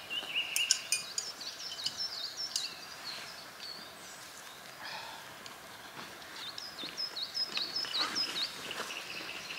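Songbirds singing in forest, many short overlapping chirps, with a quick run of repeated falling call notes in the second half. A few sharp clicks in the first second.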